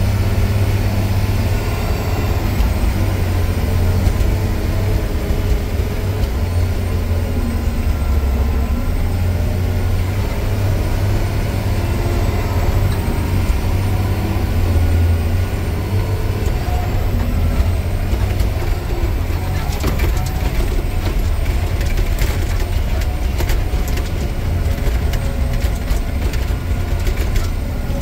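Diesel engine of a rock truck running steadily, heard from inside the cab as a deep, unbroken drone. From about two-thirds of the way in, sharp clatters and knocks are added as the truck rides over the rough, rutted haul road.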